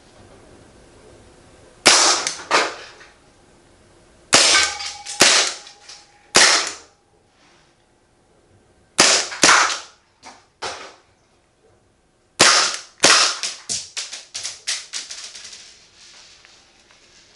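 Marzen Walther PPK gas-blowback airsoft pistol firing about eight sharp shots in uneven groups, each with a short ringing tail. Fainter clicks come between them, and a quick rattle of ticks follows the last shots.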